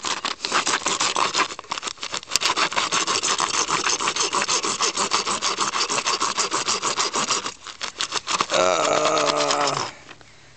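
Rusty handsaw rasping back and forth in quick strokes through a trading card in a clear plastic holder. The strokes falter briefly about three quarters of the way through, and a steady pitched tone lasts about a second near the end.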